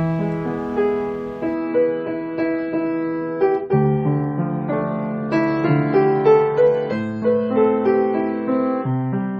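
Background music: gentle solo piano playing a slow melody over sustained chords.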